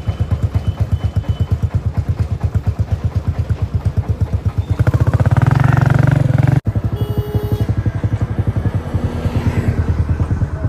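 Motorcycle engine running at low speed with a fast, even putter. It gets louder about five seconds in, then breaks off sharply and picks up again at the same steady pace.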